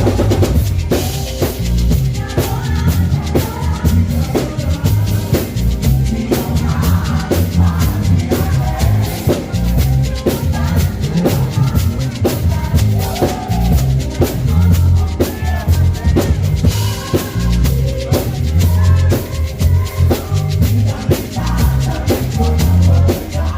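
Music: a song with a drum kit, a heavy kick drum and bass, and a melody line above.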